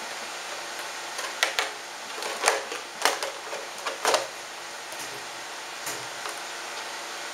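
Sharp clicks and knocks of hard plastic parts being handled and fitted on a radio-controlled truck and its remote: a quick cluster of about eight clicks over three seconds, then two faint ones, over a steady background hiss.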